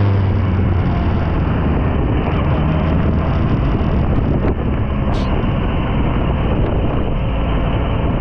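Formula Ford single-seater's engine from an onboard camera, its revs dropping as the car slows down, then running low and steady under heavy wind noise on the microphone. A short high squeak about five seconds in.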